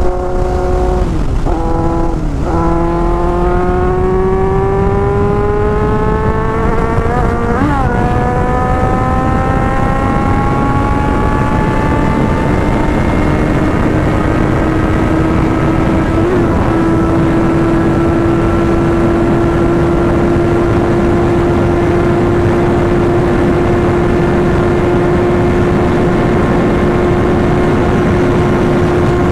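Kawasaki Z800 inline-four engine pulling hard at high revs under heavy wind rush, heard from the rider's seat. Its note dips briefly a couple of times early on and again near eight seconds, climbs steadily, then holds one steady high note for the second half. This is a wide-open top-speed run nearing about 230 km/h.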